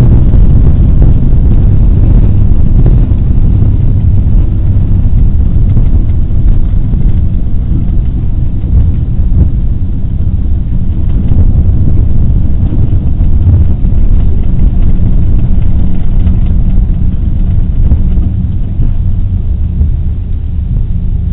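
Cabin rumble of an Airbus A340-300 on its landing rollout: a loud, steady low roar of engines and wheels on the runway. The roar eases gradually as the airliner slows.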